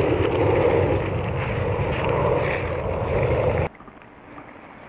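Loud rustling and rubbing right at the microphone as a sleeve and bankside grass brush against a body-worn camera while a small trout is handled in a landing net. It cuts off suddenly near the end, leaving a much quieter stream-side background.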